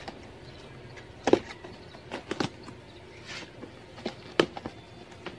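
A box cutter's blade slitting the packing tape on a cardboard box: a few sharp scrapes and clicks at irregular intervals, with the cardboard flaps being handled.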